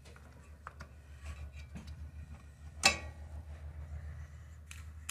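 Small clicks and taps of hand tools being handled, picking through a screwdriver bit set, with one sharp click about three seconds in, over a low steady hum.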